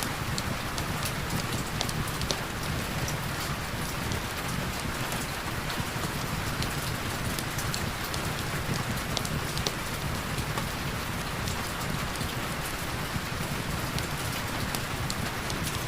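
Heavy rain falling steadily, a dense even hiss with scattered sharp ticks.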